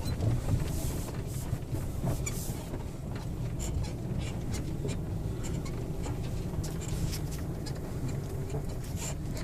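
Vehicle driving: a steady low rumble of engine and tyres, with scattered clicks and rattles.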